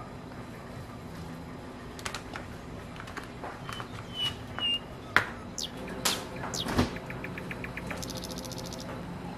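Spoon and spatula scraping and tapping on a plastic ice cube tray while it is filled with garlic paste, then the lid clicked on. Mixed in are a few short high chirps about four seconds in, and a quick rattle of ticks near the end as the freezer door is opened.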